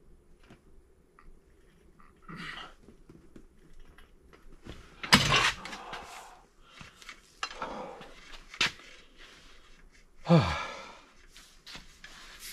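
Large ratchet-head torque wrench and hub holding tool being worked on a BMW N55 crankshaft hub bolt during its final angle tightening: several separate metallic clunks and scrapes, the loudest about five and ten seconds in.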